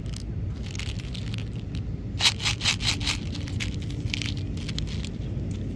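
Plastic candy wrapper crinkling and crackling in several short bursts over a steady low hum.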